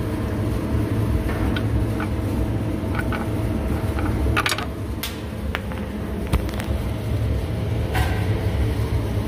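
Steady low mechanical hum, with a few light metallic clicks and knocks as parts of the open differential are handled.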